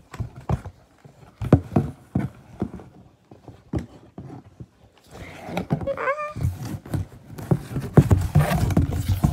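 An animal scuffling and knocking about, with irregular thumps that grow denser near the end. About six seconds in there is a brief wavering call.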